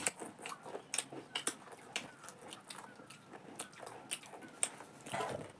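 Two children chewing crunchy jhalmuri (spiced puffed rice), heard as a run of short, irregular crisp crunches.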